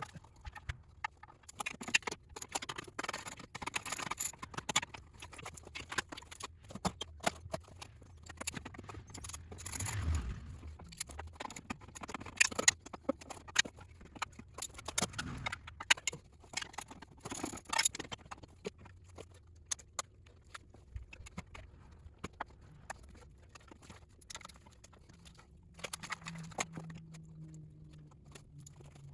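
Irregular clicks, taps and clanks of hand tools and metal parts being handled while a car's front-end structure is taken apart, with a short low hum about a third of the way in.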